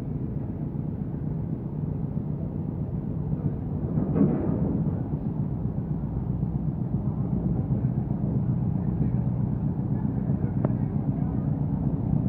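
Steady low drone of a big river passenger launch's engines as the vessel passes close by, with a brief louder rush about four seconds in.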